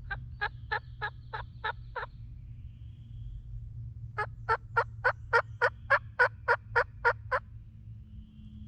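Turkey yelping: a series of seven loud, evenly spaced yelps, then after a short pause a longer series of about eleven, roughly three to four notes a second.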